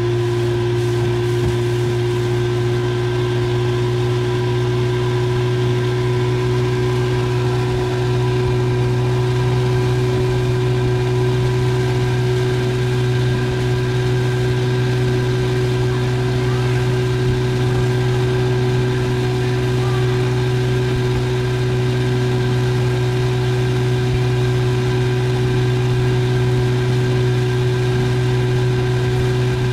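A boat's outboard motor running at a steady cruising speed, a constant hum that holds the same pitch throughout.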